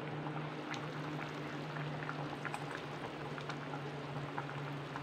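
Chicken kulambu gravy simmering in a kadai on a gas stove, with scattered small bubbling pops and ticks over a steady low hum.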